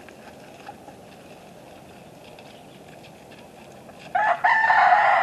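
A rooster crows once, a loud drawn-out cock-a-doodle-doo starting about four seconds in, after a few seconds of only faint background.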